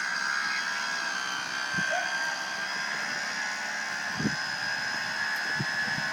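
Small electric motor of a toy RC boat running with a steady high whine, with a few faint low thumps.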